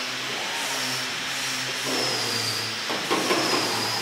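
Workshop machinery noise: a steady low hum with a high, slightly wavering whine from a handheld power tool working on the car's bare metal body.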